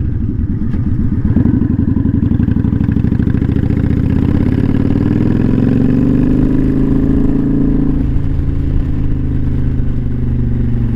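Kawasaki Vulcan 900 Custom's V-twin engine running under way, its pitch rising as it accelerates from about four seconds in, then dropping slightly after about eight seconds and holding steady.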